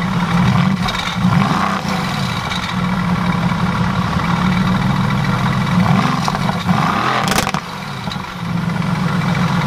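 2016 Mercedes-AMG GT S's twin-turbo V8 running through its exhaust at idle, revved briefly a few times. There is one sharp crack about seven seconds in.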